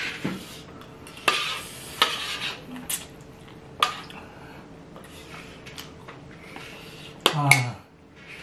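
Metal utensils clinking and scraping against a metal sheet pan of stir-fried noodles: a handful of sharp, separate clinks, with the loudest double clatter near the end.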